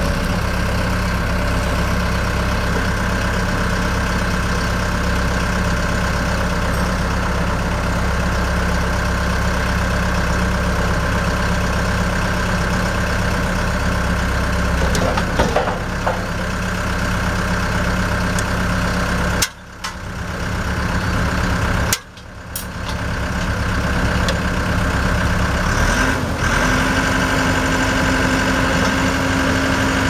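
The Cummins 4DT3.9 3.9 L turbo diesel of a 1995 Vermeer V8550 plow/backhoe runs steadily. Past the middle the sound briefly drops out twice. Near the end the engine note rises and holds at a higher steady pitch.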